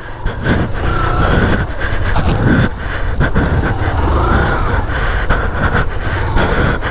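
Motorcycle engine running steadily under throttle as the bike is ridden slowly through shallow water and wet mud.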